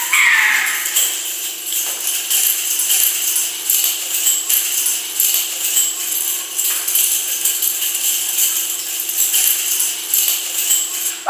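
Background music with shaken jingling percussion over a steady held tone.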